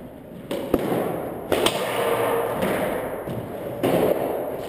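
Squash ball being struck by racquets and hitting the court walls in a rally: a handful of sharp smacks, the sharpest about three-quarters of a second in, a pair around a second and a half, and one more near four seconds.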